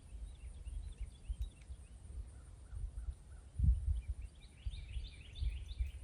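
Small birds chirping in short, arched notes, with a denser run of rapid chirps near the end, over an uneven low rumble and one dull thump in the middle.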